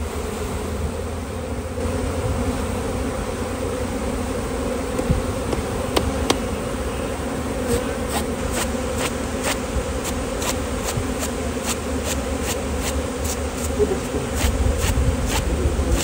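A large mass of honey bees buzzing in a steady hum from an opened box hive, the colony stirred up as its combs are brushed off and lifted out. In the second half a run of quick light clicks, about three a second, sounds over the buzz.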